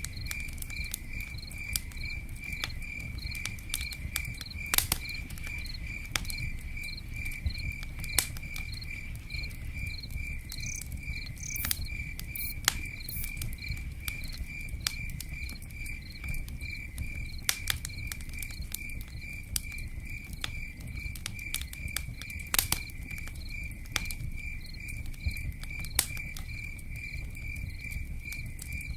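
A cricket chirping steadily in an even rhythm of about three chirps a second. Scattered sharp pops of a crackling campfire and a low rumble sit beneath it.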